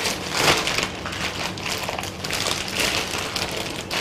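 Plastic zip-lock bag crinkling and rustling in several crackly surges as a block of dough is slid out of it.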